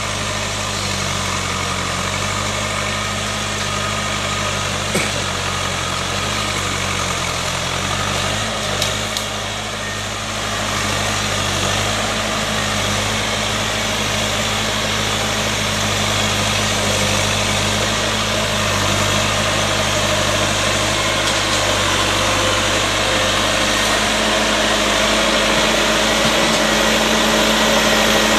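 Massey Ferguson 3065 tractor's diesel engine running steadily at low revs, growing louder as the tractor comes closer. Two short knocks sound about five and nine seconds in.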